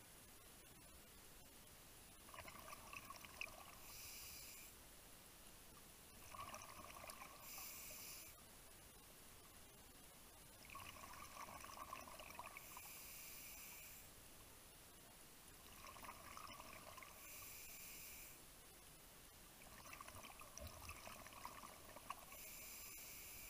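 Faint scuba breathing through a regulator underwater: a hiss on each inhale and a bubbling rush of exhaled air, repeating about every four to five seconds, five breaths in all.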